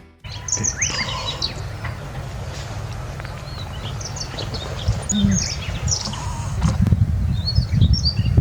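Small wild birds giving short, high chirps and call notes, scattered throughout, over a steady low rumble of outdoor noise.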